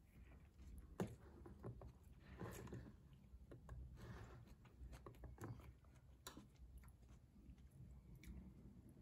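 Faint eating sounds: a metal spoon and fork clink against a ceramic bowl of noodle soup, with quiet chewing. The sharpest clink comes about a second in.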